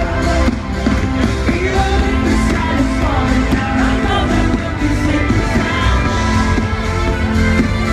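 Live band playing a synth-pop song at full volume, with a steady driving beat and singing over it.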